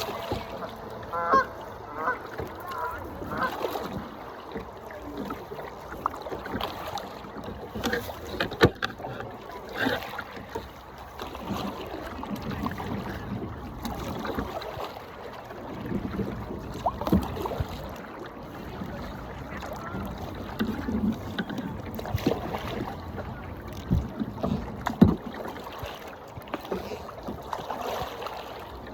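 Waterfowl calling, a quick series of short calls in the first few seconds, over the water noise and occasional sharp knocks of a kayak on the water.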